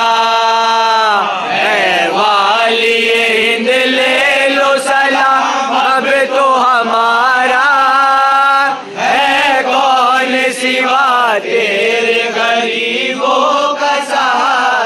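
A group of men singing an Urdu devotional manqabat refrain together in unison, in drawn-out lines with long held notes.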